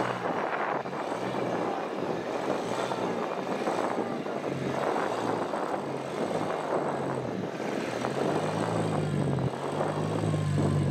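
Rock crawler buggy's engine revving in repeated bursts, rising and falling, as it pulls itself up a steep rock ledge; near the end the revs hold higher and steadier.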